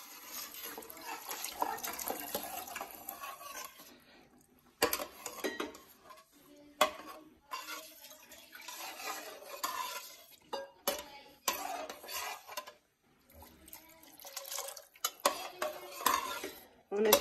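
Steel ladle stirring boiled kidney beans into thick masala gravy in a metal pressure cooker: irregular wet scraping, with sharp clinks of metal on the pot several times.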